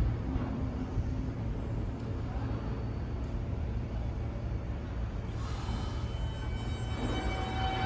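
New York City subway train running on the elevated track with a steady low rumble. About five seconds in a hiss starts, and then the steel wheels begin to squeal on the rails with several high tones near the end.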